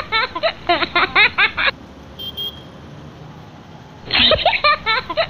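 A high-pitched giggling laugh, a short comic laughter clip in quick syllables, played once and then again about four and a half seconds later. A low steady hum of road traffic runs underneath.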